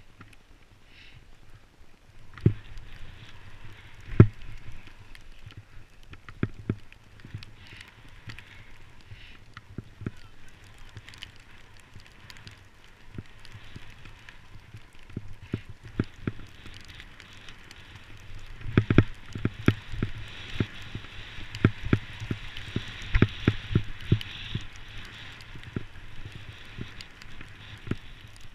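Skis running through snow: a steady hiss with irregular knocks and thumps, loudest about 2 and 4 seconds in and thickest in a cluster from about 19 to 24 seconds in.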